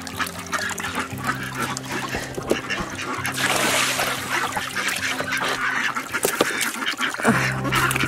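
A group of domestic ducks quacking over and over, with soft background music underneath.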